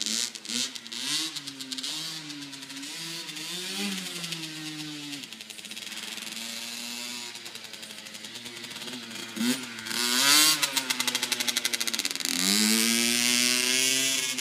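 Small dirt bike engine running as it is ridden, its pitch climbing and dropping as the throttle is opened and eased off. It gets louder with a quick rise in pitch about ten seconds in, and again from about twelve seconds on as it revs up.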